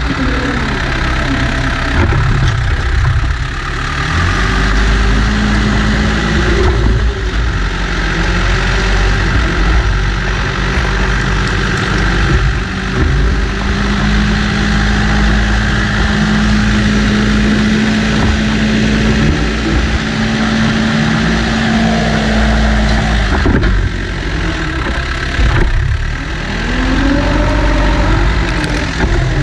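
New Holland B95 backhoe loader's diesel engine running under load as the front loader bucket pushes and levels dirt. The engine drones steadily, with its pitch rising and falling a few times as the throttle and load change.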